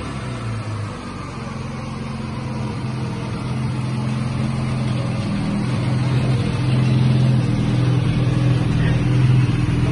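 Turbocharged Classic Mini engine running at a steady speed on dyno rollers, holding an even pitch and growing gradually louder.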